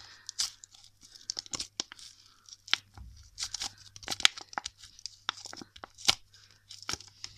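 Clear plastic wrapper crinkling and tearing as it is peeled off sticky, crunchy foam-bead snow slime, with irregular sharp crackles and pops throughout.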